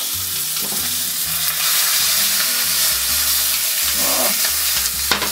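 Entrecôte steak frying in hot oil with garlic in a pan: a steady hissing sizzle.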